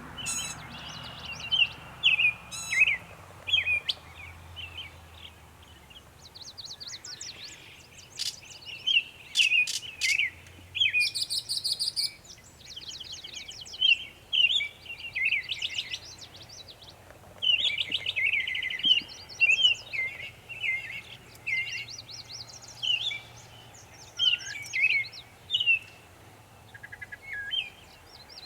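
Northern mockingbird singing a long run of varied high phrases, many of them repeated several times in quick succession before it switches to another sound, with a few short pauses.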